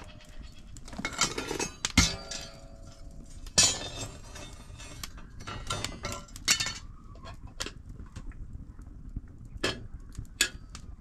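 Goats bleating a few times, with scattered sharp clinks and knocks.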